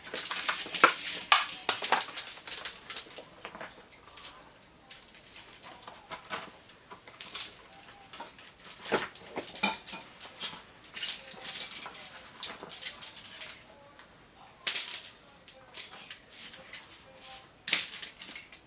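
Metal climbing hardware, carabiners and cams, clinking and jingling as it is handled and sorted, in irregular clusters of sharp clinks that are loudest in the first few seconds.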